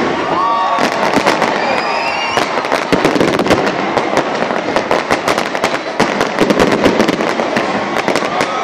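A fireworks display going off in a dense barrage: rapid bangs and crackling, many reports a second, without a pause.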